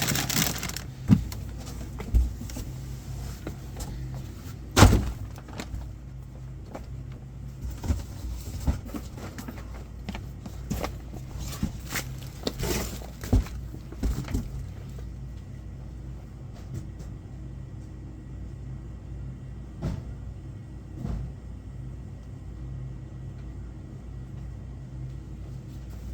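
Convenience-store stock being handled and shelved: scattered knocks, thuds and clicks of boxes and goods, the loudest about five seconds in and fewer in the second half, over a steady low hum.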